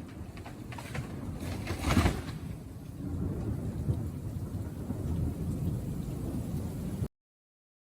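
Thunderstorm: a steady rumbling wash of rain noise with one loud burst about two seconds in. The sound cuts off abruptly near the end.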